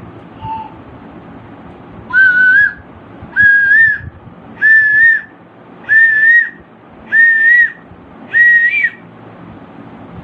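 A bird calling in a series of six loud, clear whistled notes about a second apart, each a little higher than the one before.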